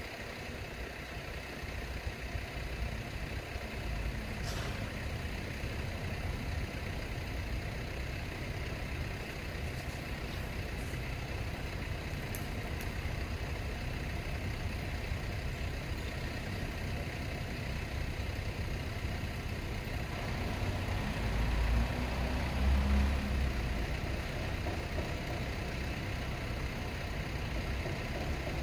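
Steady low rumble of street traffic, swelling louder for a couple of seconds about 21 seconds in.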